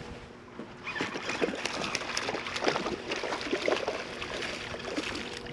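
Water sloshing and splashing, a dense crackle of small splashes that sets in about a second in and keeps on.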